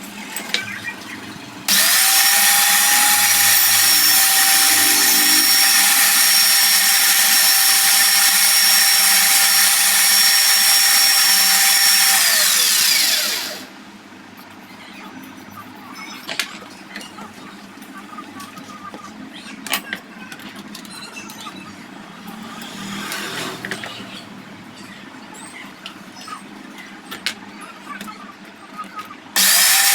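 A handheld electric power tool runs at steady speed with a high whine for about ten seconds, then winds down with falling pitch. Light clicks and knocks of handling follow, and the tool starts again near the end.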